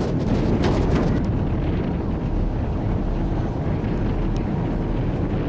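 Wind buffeting the microphone aboard a moving ferry boat, a steady low rumble of wind and the boat running over the water, with a few brief splashy crackles in the first second.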